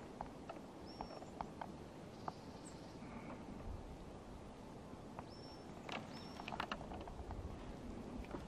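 Three short, thin, high bird call notes, each a brief steady whistle, among scattered light ticks and taps over a low background rumble.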